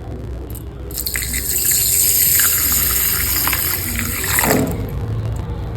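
Water from a kitchen tap running into a bowl. It starts about a second in and is turned off near the end.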